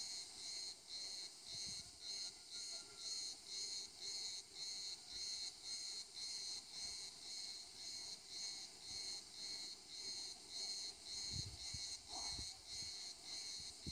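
Faint insect chirping in an even pulsing rhythm, about two to three high-pitched pulses a second.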